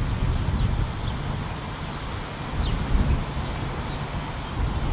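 Wind buffeting the microphone in a gusty low rumble, with short, high, falling bird chirps every second or so.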